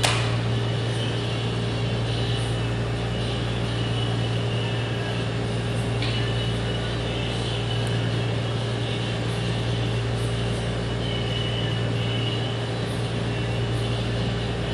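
Steady mechanical room hum, like ventilation or a fan running. A single sharp click comes right at the start, and a faint tick about six seconds in.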